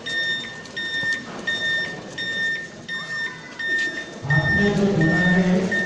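Electronic beeper on a model army missile-launcher truck, sounding short even beeps about once every 0.7 s, like a vehicle's reversing alarm. About four seconds in, a loud nearby voice comes in over the beeping.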